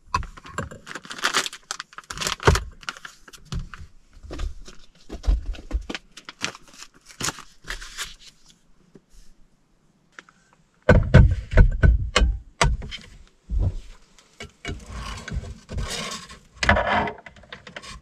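Packs of instant noodles, an induction hotplate and a frying pan being handled and set out on the counters: a run of clicks, knocks and rustles, with a burst of heavier thumps about eleven seconds in.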